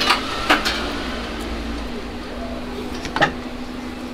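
Tableware clinking: a couple of sharp knocks in the first second and one more a little after three seconds, over a steady low hum of restaurant background.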